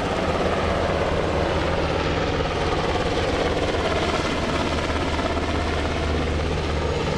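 UH-60 Black Hawk helicopter departing in flight, its main rotor and twin turboshaft engines running with a steady, dense noise.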